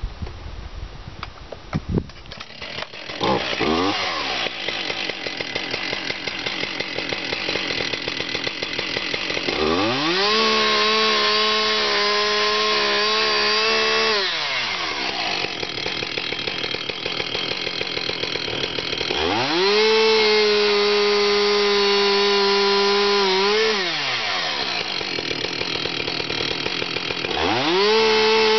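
A two-stroke chainsaw idles, then revs up to full throttle three times, holding each run about four seconds and dropping back to idle between; the last run is still going at the end. The revved runs are the nose of the bar plunge-cutting a mortise into a timber fence post, guided by a Morticesafe anti-kickback attachment. A few knocks come before the saw settles at idle.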